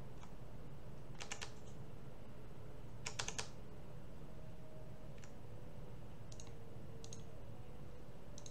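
Computer keyboard and mouse clicks: two quick runs of three or four clicks, about one and three seconds in, and single clicks scattered after, over a steady low hum.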